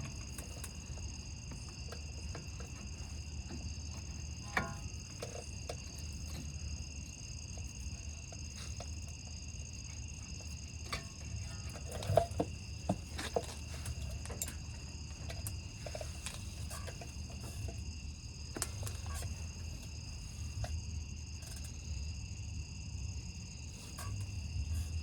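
Steady high insect trilling, with scattered sharp metallic clinks and knocks from tools and brake caliper parts being handled, the loudest about halfway through.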